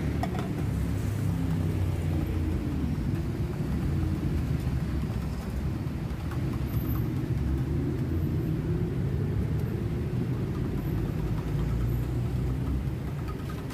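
Steady rumble of heavy city traffic, with a large vehicle engine running close by, its pitch slowly rising and falling.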